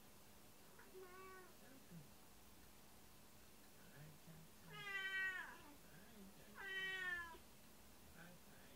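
Domestic cat meowing: a faint short call about a second in, then two loud, drawn-out meows about two seconds apart, each falling in pitch at the end. It is the calling of a cat left home alone by its owners.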